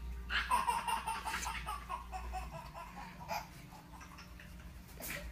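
A baby laughing in a quick run of short bursts, loudest in the first two seconds and trailing off after, with a sharp click near the end.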